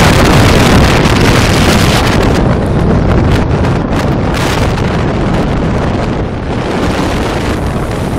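Loud wind buffeting the microphone through an open car window at road speed, mixed with tyre and road noise from the moving car; it eases slightly towards the end.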